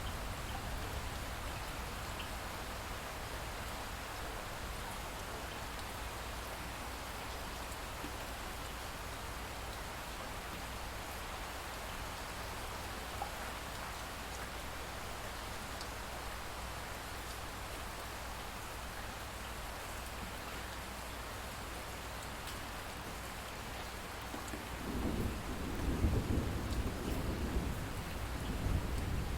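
Steady rain falling, an even hiss. Near the end a low rolling rumble of thunder swells in.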